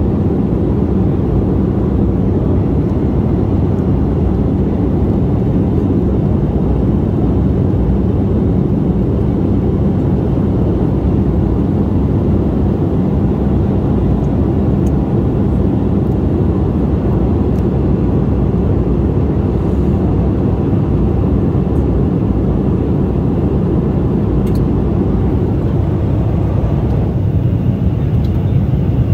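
Jet airliner in cruise flight heard from inside the passenger cabin: a steady, low drone of engines and air rushing past the fuselage.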